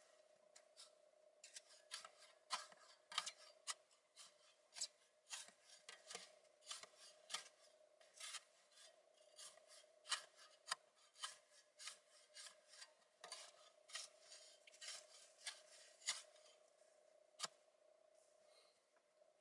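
Shovel blade scraping and chopping at packed snow and ice around the base of a pole set in a hole in lake ice: sharp scrapes, roughly one or two a second, stopping near the end.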